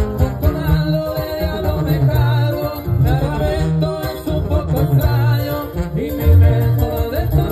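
Live acoustic band playing: sousaphone and upright bass lay down a repeating low bass line under strummed acoustic guitars, with a wavering lead melody on top.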